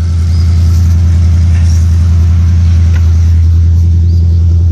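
An engine running steadily at idle: a loud, even low drone with no change in speed.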